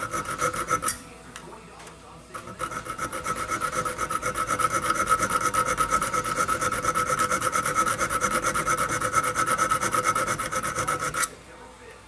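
Small hand file rasping on the steel pan of a foothold trap in quick, even back-and-forth strokes, filing the pan notch up to a square edge for night latching. A few strokes, a pause of about a second, then a long steady run of strokes that stops abruptly near the end.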